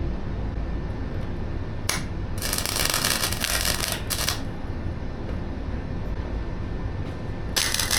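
Forney Easy Weld flux-core MIG welder arc crackling in bursts while tack welds are laid: a brief spark about two seconds in, a crackle of nearly two seconds, a short one after it, and another starting near the end.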